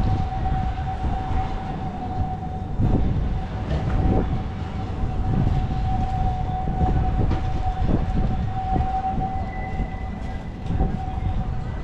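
A tram running close by: a low rumble with scattered knocks and a steady high whine throughout, joined by a second, higher whine near the end.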